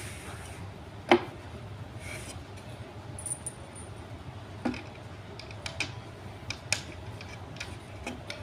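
Scattered clicks and light knocks from hand assembly of a wooden patio chair: wooden parts knocking together and loose metal screws clinking as they are picked from a pile. One sharp knock about a second in is the loudest, followed by a string of lighter clicks.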